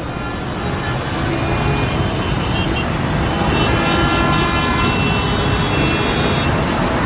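Road traffic noise, growing slowly louder, with several steady high tones held for a few seconds, like horns, from about a second in until near the end.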